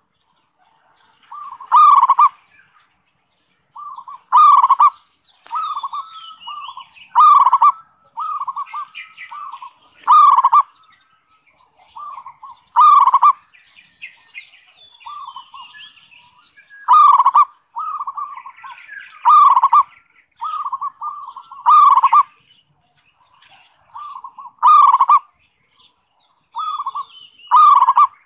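Zebra dove (perkutut) singing its rapid, staccato cooing phrase, repeated every two to three seconds: the 'kerot' (ngerot) style of perkutut song. Fainter high chirping sounds between the phrases.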